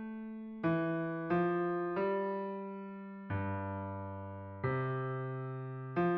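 Computer score playback of a four-part choral setting, voiced on a piano sound: six chords struck one after another and each left to die away, the one about halfway through held longest over a low bass note. It is a part-learning track for the bass line.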